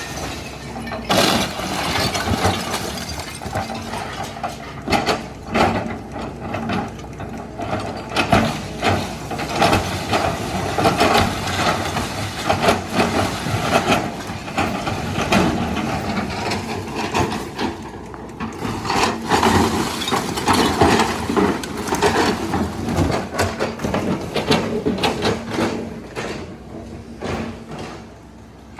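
Hitachi excavator's diesel engine running under load while it tears down a house, with a continual irregular crunching, cracking and clattering of breaking wood and falling debris.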